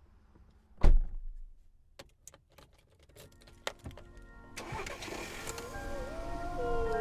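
A car door shuts with a single heavy thump about a second in, followed by a few light clicks. Music then fades in and grows louder.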